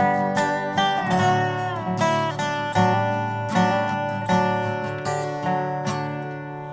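Acoustic guitar strumming a steady country rhythm under a dobro playing a slide lead with gliding notes, in an instrumental break without vocals.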